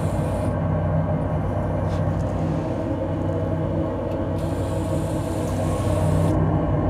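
Steady low machine hum over a constant noise from a running RepRap-style 3D printer with a syringe-pump print head.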